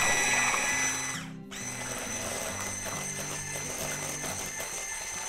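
Electric hand mixer with twin whisk beaters running in a glass bowl, whisking eggs and sugar with a steady motor whine. The whine cuts out for a moment about a second and a half in, then runs on more quietly.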